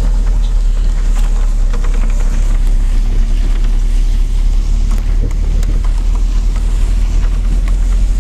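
Steady low rumble of a vehicle driving across a grass field, with wind buffeting the microphone and a few short knocks.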